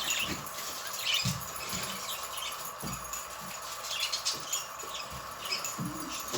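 Small cage songbirds giving short, scattered chirps, with a few soft thumps of movement among them.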